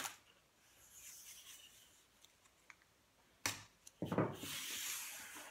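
A hand rubbing masking tape down onto pine boards, after faint tape unrolling near the start. A sharp knock comes about three and a half seconds in, then about a second of rubbing.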